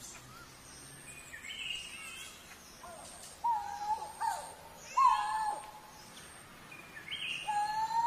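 Coral-billed ground cuckoo calling: three loud, held calls, each a steady note that falls away at the end, about a second and a half apart in the second half. Fainter, higher chirping calls come in between.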